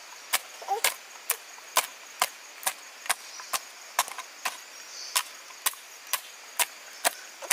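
Steady chopping: sharp, even knocks about twice a second, like a blade striking wood.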